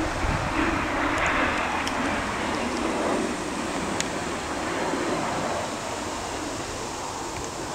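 Jet engine of a swept-wing fighter flying past overhead: a steady rushing roar that is loudest about a second in, then slowly fades as the jet moves away.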